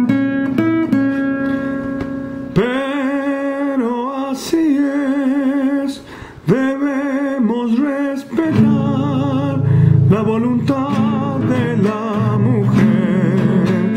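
Male voice singing a Spanish-language song with vibrato, accompanied by guitar; the guitar plays alone at first and the voice comes in about two and a half seconds in, with a short break in the singing near the middle.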